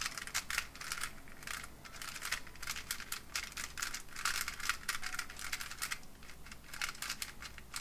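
X-Man Volt Square-1 puzzle being turned by hand: a fast, irregular run of light plastic clicks and clacks as its layers turn and the slice layer flips. The puzzle is new and not yet broken in.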